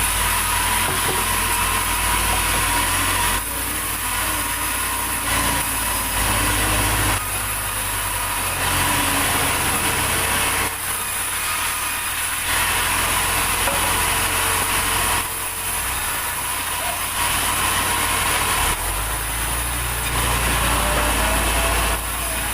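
Sawmill saw cutting through a large durian log: a steady rasping cut over the drone of the mill's engine, its sound shifting every couple of seconds.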